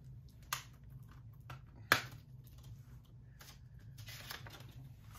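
Plastic Blu-ray case being handled and opened by hand: a few sharp clicks, the loudest about two seconds in, then a rustle near the end.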